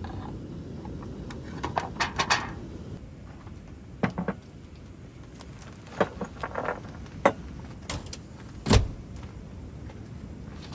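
Items being handled and set down on a wooden table: scattered knocks and clinks of bottles, cans and glasses, the loudest a single thump about three-quarters of the way through, over a steady low background rumble.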